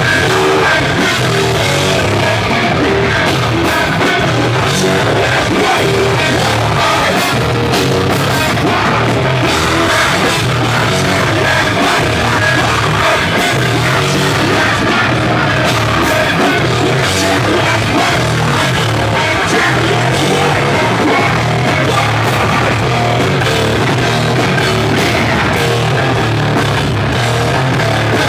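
Metalcore band playing live at full volume: a dense, steady wall of heavy distorted guitars, bass and drum kit with no break.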